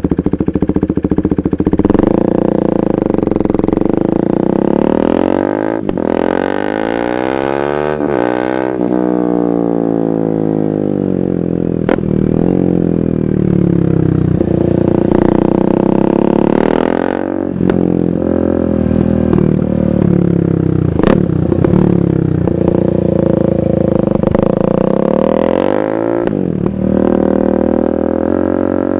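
A KTM 390 Duke's single-cylinder engine running through an aftermarket KO Lightning exhaust while riding. The revs climb and drop several times as it pulls and slows, with one long falling run in the first third and a few sharp cracks along the way.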